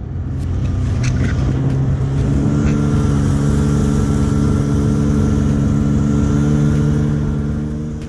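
Snowmobile engine towing a passenger sled over snow: it picks up about two seconds in, then runs at a steady pitch, with wind and track noise under it.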